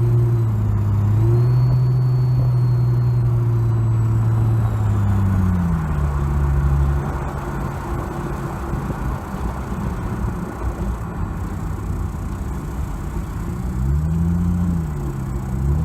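Plymouth Prowler's engine running with a wheezing sound. The engine note drops about five seconds in and rises and falls twice near the end.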